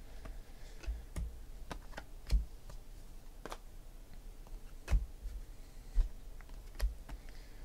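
Trading cards being flipped through by hand: a few soft clicks and snaps as cards are slid off the front of a stack, spaced irregularly about a second apart.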